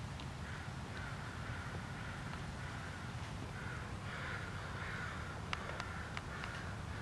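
A bird calling over and over, short rough calls about two a second, louder from about four seconds in, over a low steady rumble. A few faint ticks near the end.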